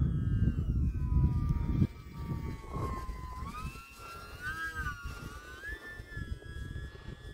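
Electric motor and propeller of a small E-flite UMX Timber X RC plane whining overhead, the pitch sliding down and then climbing and wavering as the throttle is worked to bring it into a low hover. A low rumble of wind on the microphone covers the first two seconds and cuts off suddenly.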